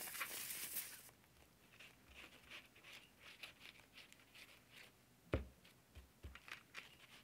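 Quiet sound of a squeeze bottle of craft glue being drawn along paper: a short hiss at the start, then faint scratchy rustles. A soft knock comes a little after five seconds in, followed by two lighter taps.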